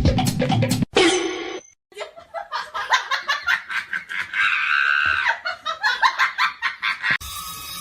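A person laughing hard in rapid, repeated bursts, with one brighter, held squeal partway through. A few beats of drum-heavy music cut off just before.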